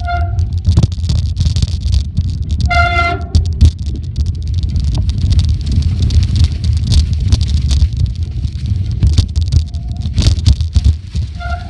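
Cannondale Scalpel 29 alloy mountain bike descending a leaf-covered trail at speed: a constant low rumble of wind buffeting and tyres, with frequent rattles and knocks. The brakes squeal in a steady high tone for about a second around three seconds in, and again near the end.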